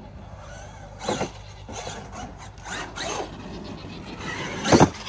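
Traxxas Bandit RC buggy running on a dirt track: tyres scrabbling and a few knocks as it lands off jumps, then a sharp, loud hit near the end.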